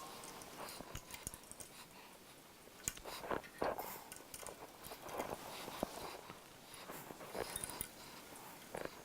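Irregular light clicks and metallic knocks of hand work on small metal parts: a wrench and fingers loosening and removing the tachometer sensor's nuts and bracket on the wood chipper, the chipper itself not running.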